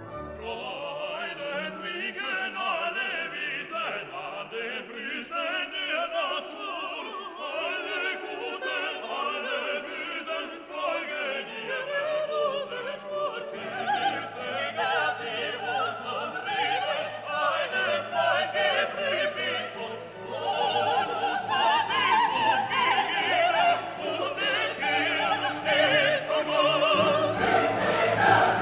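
Background classical music: an orchestra with choir and solo singing, growing louder about two-thirds of the way through and again near the end.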